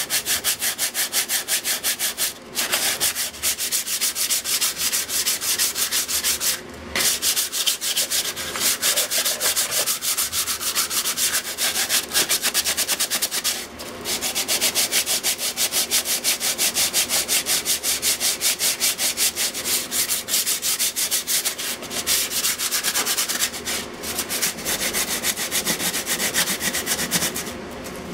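Sandpaper rubbed by hand over the rusted sheet-metal top of an electrical box in rapid back-and-forth strokes, with a few short pauses. It is scuffing off rust to prepare the surface for bonding.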